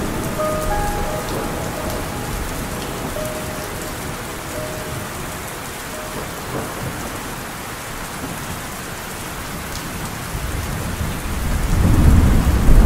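Steady rain falling, with a loud roll of thunder that builds up and peaks near the end. The last faint notes of a slowed melody fade out in the first few seconds.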